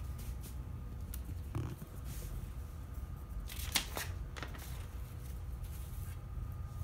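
A sheet of paper handled on a letterpress proof press: a soft rustle about a second and a half in, then a quick, crisp flutter of paper just before four seconds in, over a steady low hum.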